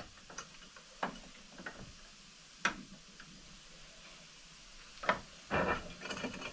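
Scattered light clicks and knocks, about five of them spread over several seconds, from handling a small brass bush as it is squeezed up, with a short cluster of knocks near the end.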